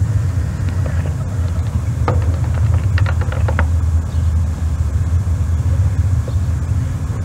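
Steady low rumble with a few short clicks and knocks about two to three and a half seconds in.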